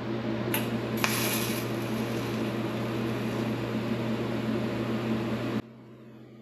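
An electric shop machine running with a steady hum and hiss, with two light clicks early on; it cuts off suddenly about five and a half seconds in.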